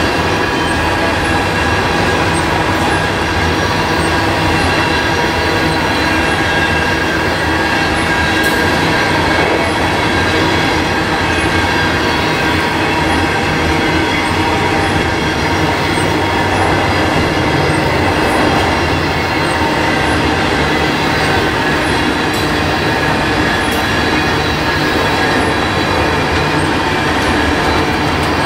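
Norfolk Southern tank cars of a crude oil train rolling past at a steady speed. The steel wheels on the rail make a continuous loud rumble and rattle, with steady high ringing tones over it.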